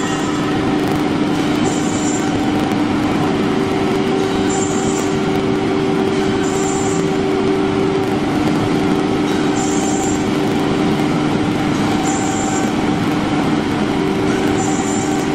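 Woodworking CNC router running steadily, a mechanical hum with two close mid-pitched tones over a noisy rush, and a brief higher hiss coming back about every two and a half seconds.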